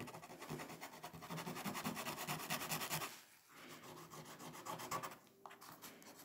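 Knife blade scraping into thick layers of oil pastel on paper (sgraffito), quick repeated scratching strokes. They pause about three seconds in, resume, and fade to lighter scrapes near the end.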